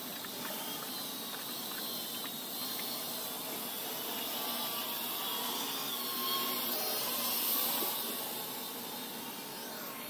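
Parrot AR.Drone quadcopter in flight: its four electric motors and propellers give a steady whirring hiss with a high whine that drifts in pitch. It gets louder from about six seconds in as the drone passes closer, then eases off.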